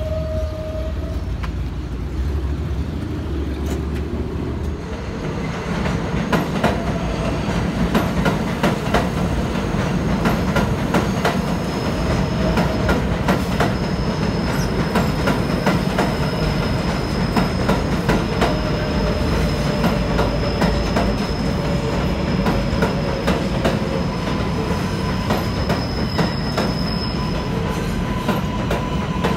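New York City Subway 7 train running through an elevated station, wheels clacking over rail joints with a long, high wheel squeal. For the first few seconds a train's motors hum with a few steady tones, and the louder clacking run begins about five seconds in.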